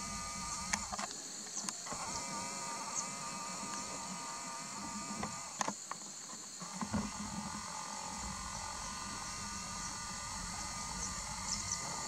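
Steady high-pitched insect chorus, with a few short faint clicks.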